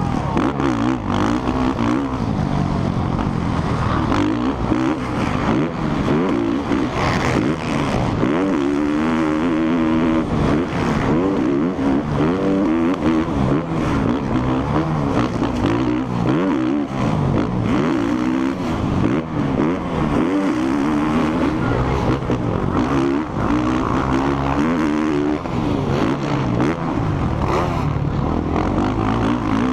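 A motocross bike's engine heard from the rider's helmet while racing, revving up and down over and over as the throttle opens and closes through the corners and straights, with a rush of wind and track noise underneath.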